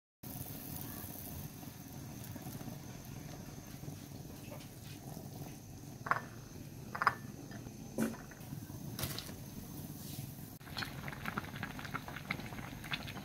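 Water boiling in a steel pot: a steady bubbling hiss with a crackle of bubbles near the end. A few sharp clicks of kitchen tongs handling the food come about halfway through.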